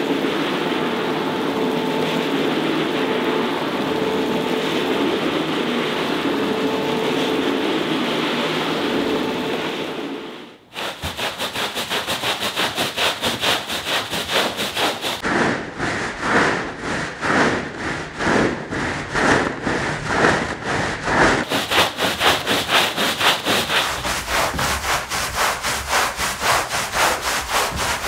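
A counter-rotating brush (CRB) carpet-cleaning machine runs with a steady hum, scrubbing shampoo into a wet rug, and cuts off about ten seconds in. After that a stiff-bristled push broom scrubs the foamy rug by hand in quick, rhythmic strokes.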